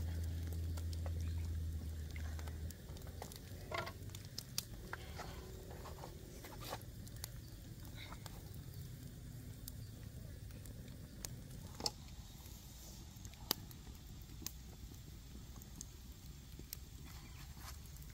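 Open wood fire crackling, with scattered, irregular sharp pops. A low rumble sounds over it for the first three seconds or so, then stops.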